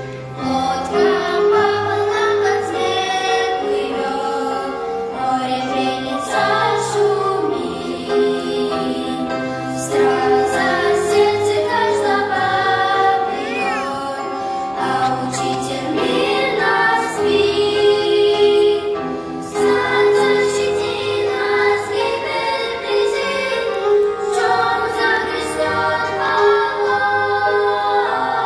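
Large children's choir singing a Russian-language hymn with instrumental accompaniment and held bass notes beneath the voices.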